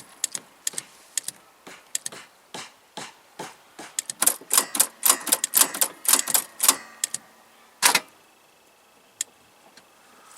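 Mercedes M110 straight-six engine running cold with a sharp, rapid mechanical knock: a fast run of clicks that turns irregular and dense, with the last loud click about 8 seconds in before it goes quiet. This is the knock whose cause the owner is trying to find.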